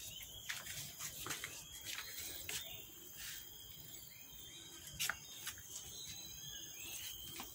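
Quiet outdoor ambience: a steady, high insect drone runs throughout, with a few faint clicks scattered through it.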